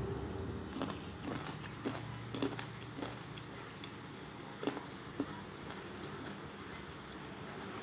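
Eating sounds of a person picking at and chewing spicy chicken feet with rice by hand: scattered soft clicks and squishes, irregular, the sharpest a pair just before the middle, over a faint low hum.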